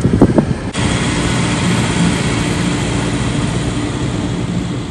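Steady road and wind noise inside a moving car's cabin, with a faint low engine hum underneath. A few short, louder sounds come in the first half second, and the noise changes abruptly just under a second in.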